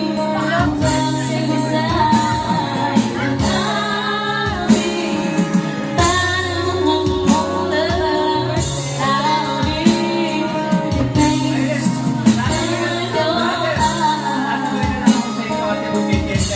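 Music with singing, including a woman's voice, over a steady beat and bass.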